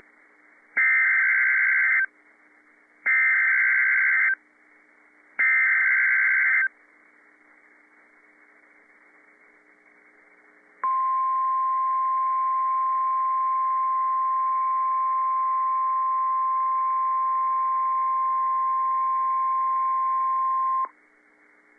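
NOAA Weather Radio Emergency Alert System signal: three SAME data-header bursts about a second long each, a few seconds of quiet, then the steady 1050 Hz warning alarm tone held for about ten seconds. It is the alert sequence that opens a new tornado warning.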